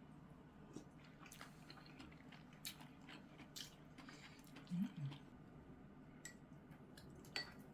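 A person chewing and eating a home-cooked meal, with scattered faint short clicks.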